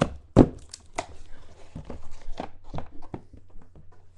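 A hard trading-card box being opened and handled: a series of knocks and clicks, the loudest about half a second in, with lighter taps and rustling after as the case inside is lifted out.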